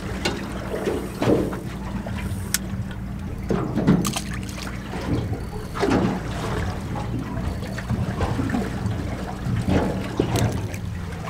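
Water slapping and lapping against a small boat's hull every second or two, over a steady low engine hum.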